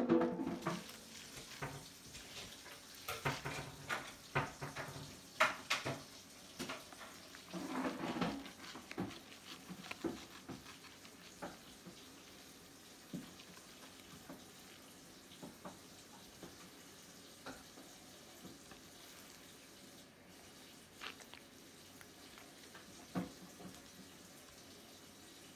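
Fillet knife and hands working a walleye fillet on a cutting board: wet slapping and scraping of the fish flesh. A sharp knock at the very start is followed by frequent short clicks and scrapes for about ten seconds, then only occasional ones.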